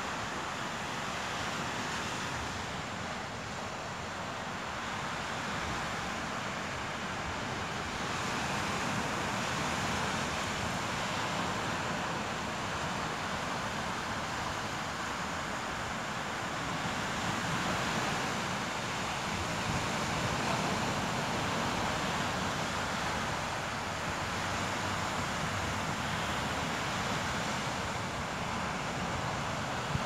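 Surf breaking and washing up a sandy beach: a steady rushing that swells and eases slowly, with wind buffeting the microphone.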